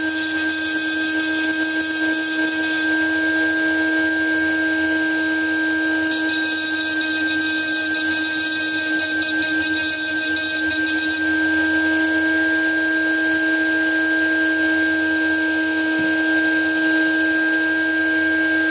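Small electric rotary handpiece with a burr, running at high speed with a steady high-pitched whine while it stipples away the background on a stainless steel pistol barrel. From about six to eleven seconds in, a harsher hiss joins the whine as the burr works the metal.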